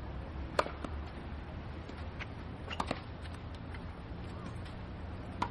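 Tennis ball struck with a racket during a clay-court rally: a sharp pop about half a second in, two quick pops near the middle as the ball is hit and bounces, and another pop just before the end. A steady low rumble lies underneath.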